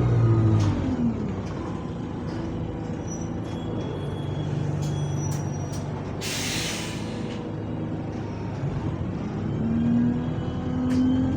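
City bus's engine and gearbox whine falling in pitch as it slows to a stop, then idling. About six seconds in comes a loud hiss of air as the parking brake is applied. Near the end the engine and gearbox whine rise again as the bus pulls away.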